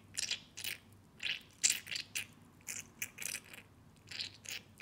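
Plastic cleaning pipette of a Pilot Parallel pen squeezed over and over while fitted to the nib, giving short, uneven crinkly, scraping bursts, a few each second, as water is forced through the nib to flush out ink.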